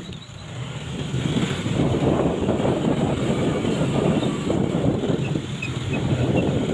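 A motor vehicle running steadily, a dense low rumble of engine and road noise that builds up within the first second or two.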